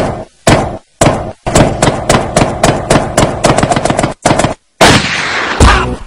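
Gunfire-like sound effects cut into a dance-mix soundtrack. A few single sharp hits with short silences between them lead into a fast rattling run like machine-gun fire. Near the end comes a longer noisy blast, followed by heavy bass hits.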